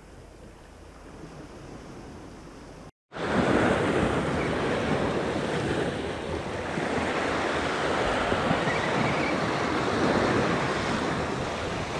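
Sea surf washing on the shore with wind on the microphone, a steady rushing noise. About three seconds in the sound cuts out briefly, then returns much louder.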